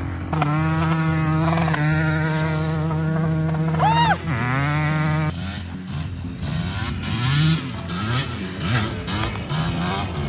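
Dirt bike engine running at steady high revs while towing a kayak across snow, with a quick rise and fall in pitch about four seconds in. After an abrupt change, the engine sounds from farther off, its pitch swinging up and down as it revs and eases off.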